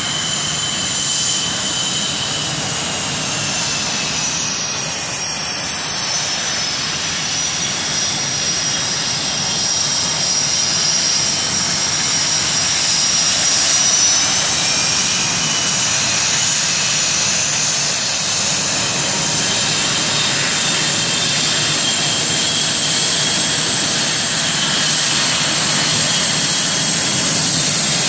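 Several US Navy F/A-18 Hornet jets taxiing past, their twin turbofan engines whining steadily at taxi power. Several high whine pitches slide slowly as the jets move by, and the sound grows a little louder toward the end.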